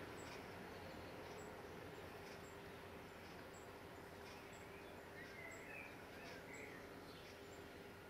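Near silence: faint outdoor background hiss, with a faint high tick about once a second and a few faint bird chirps between about five and seven seconds in.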